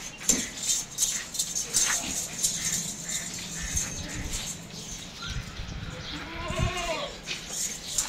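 A goat bleats once, briefly, about six and a half seconds in, over scattered sharp clicks and knocks.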